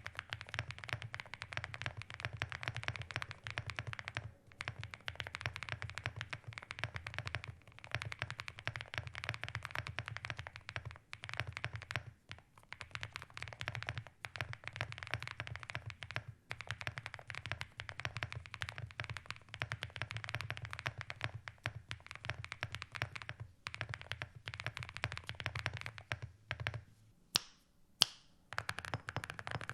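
Mechanical keyboard being typed on fast and without a break in a typing sound test, the keystrokes clacking continuously with a few short pauses. Near the end come a few separate, louder key strikes.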